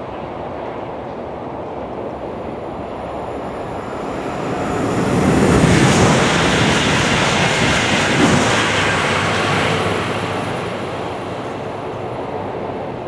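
High-speed train passing at speed: its noise swells about four seconds in, is loudest for several seconds, then dies away.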